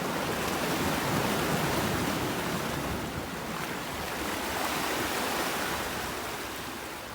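Sea waves washing, a steady rushing noise that swells and eases over a few seconds.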